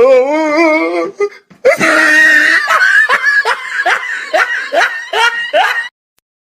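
A high, wavering voice, then a burst of laughter in quick rhythmic pulses, about three a second, that cuts off suddenly near the end.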